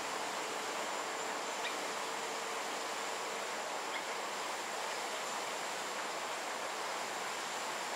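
Steady forest ambience: an even hiss with a thin, steady high-pitched insect tone, and a couple of faint ticks.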